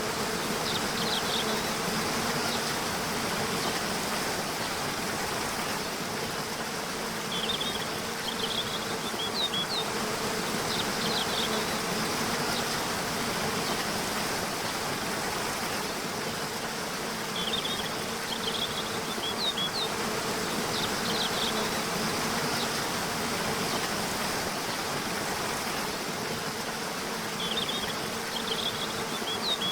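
Waterfall rushing steadily under a constant low buzz, with a bird's short high chirping phrase coming back about every ten seconds, three times.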